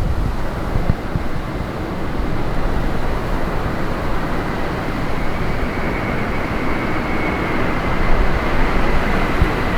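Jet airliner's engines running as the aircraft passes, a faint high whine that rises slightly and then falls near the end over a steady rumble, with gusty wind buffeting the microphone.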